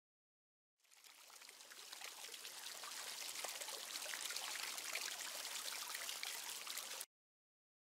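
Fountain water splashing steadily into a basin. It fades in about a second in, swells over the next few seconds, and cuts off suddenly near the end.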